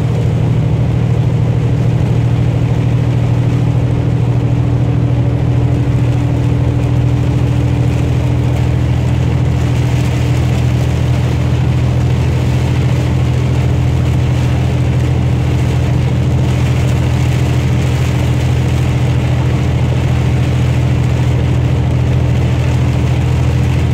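Steady low drone of a truck's engine, heard from inside the cab while driving, over the hiss of rain and tyres on the wet road. The hiss grows a little stronger after about ten seconds.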